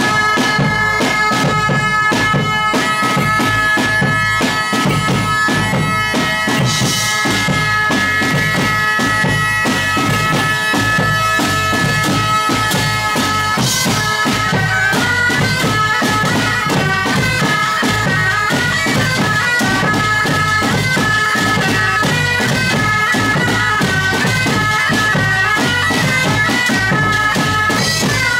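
Several medieval bagpipes playing a melody in unison over their steady drones, with a drum kit keeping a driving beat. Cymbal crashes come at about 7 and 14 seconds in, and from the second crash the melody moves faster.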